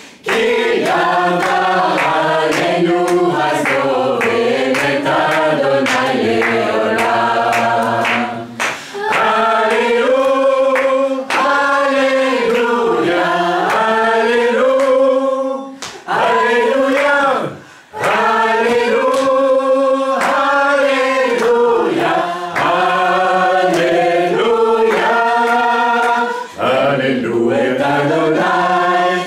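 A group of voices singing a Hebrew worship song in chorus over a steady beat, with brief pauses between phrases.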